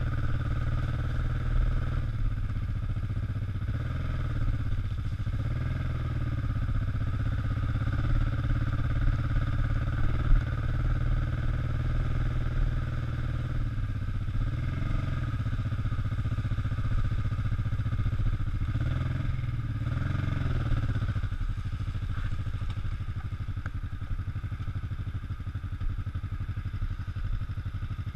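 Kawasaki EN500's parallel-twin engine running at low road speed, its note rising and falling a few times with the throttle. One sharp knock about a third of the way in.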